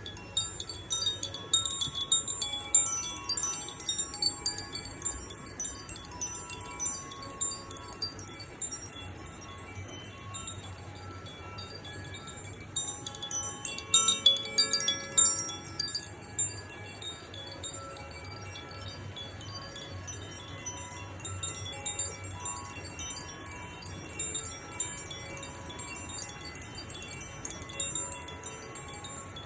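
Chimes being played: clusters of bright metallic tinkles, busiest near the start and again about halfway through, with their tones ringing on between the strikes.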